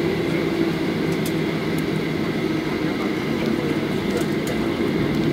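Steady drone of a Boeing 737-800 airliner heard from inside the cabin, with a constant low hum and a thin steady high tone. A few faint ticks come through.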